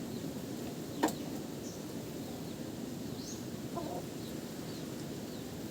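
Faint, short, high bird chirps scattered through a low steady background noise, with a single sharp click about a second in.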